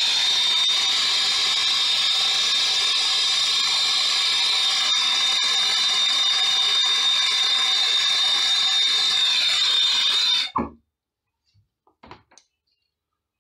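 Handheld induction heater whining with a steady high-pitched tone while it heats a copper line-set joint for brazing. It cuts off suddenly about ten and a half seconds in.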